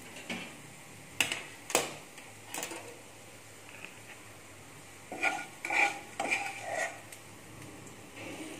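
Metal spoon clinking and scraping against cookware as a tempering of fried onion and spices is spooned out of the pan into a glass bowl of curd rice. A few sharp clinks in the first three seconds, then a quicker run of clinks and scrapes between about five and seven seconds.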